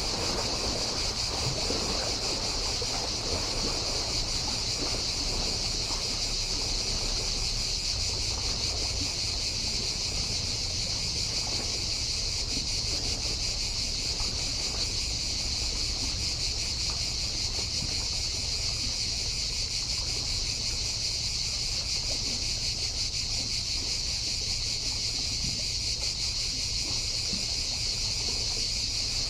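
Chorus of cicadas buzzing in one steady, unbroken high drone, with waves washing on the shore low beneath it, a little busier in the first few seconds.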